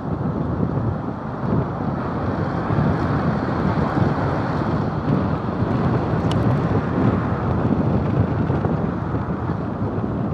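Wind buffeting the microphone of a camera mounted on the roof of a moving camper, a steady, rumbling rush mixed with road noise from the vehicle.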